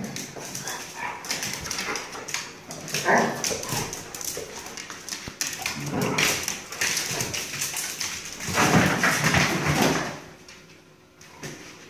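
Dogs play-fighting: whining, yipping and short barks over scuffling, with louder flurries about three, six and nine seconds in, dying away near the end.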